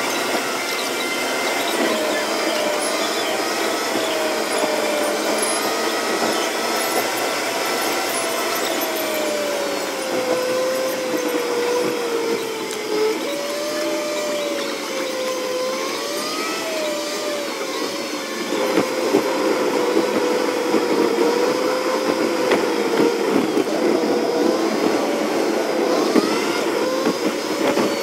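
Steady road and engine noise inside a moving car, with a whine that wavers slowly up and down in pitch. About two-thirds of the way in, the noise turns rougher, with crackling.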